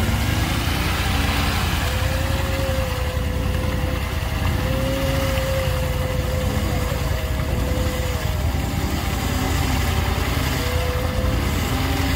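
Off-road 4x4 vehicle's engine running steadily through hard going, with a whine that rises and falls slightly in pitch.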